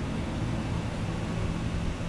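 Steady low hum with an even hiss of room background noise.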